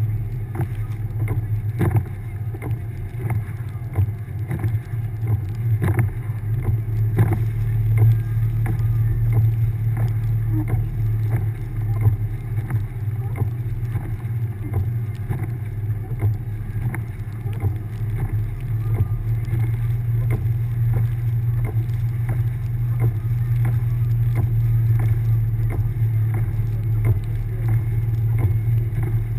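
1999 Subaru Forester's flat-four engine running with a steady low drone while driving through deep snow, with frequent irregular knocks and bumps from the car moving over the snow-covered road.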